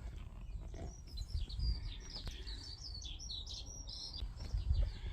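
A bird twittering: a rapid run of short, high chirps starting about a second in, over a low uneven rumble with soft thumps.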